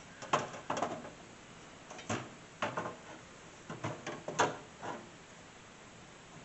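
A metal hard drive bay being handled inside a desktop PC case: a series of short knocks and clatters as it bumps against the case, ending about five seconds in.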